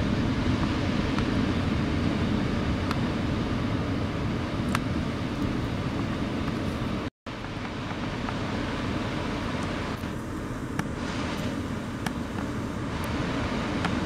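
Steady low rumble of wind and breaking surf, with a few faint clicks. The sound cuts out for a moment about seven seconds in.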